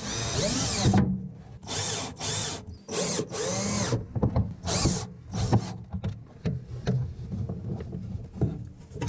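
Cordless drill/driver driving screws into a wooden stick, in several short trigger bursts whose whine rises and falls in pitch over the first five seconds. Lighter clicks and knocks from handling the drill and hardware follow.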